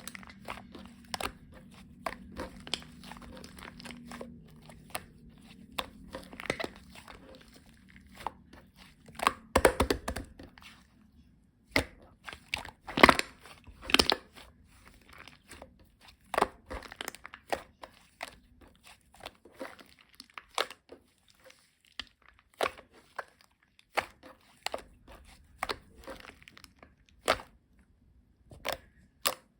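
Irregular crinkling with sharp clicks and taps as some material is handled and creased up close, loudest in two clusters around the middle.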